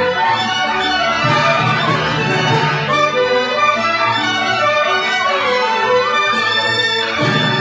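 Orchestral music led by bowed strings, playing steadily without pause.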